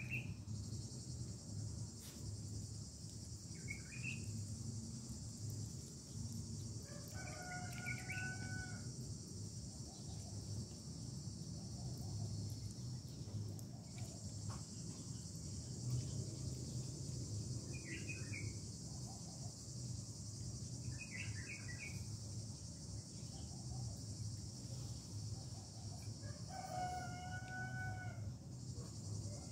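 A rooster crowing twice, once about a quarter of the way in and again near the end, with a few shorter bird calls between. A steady high drone of insects runs underneath.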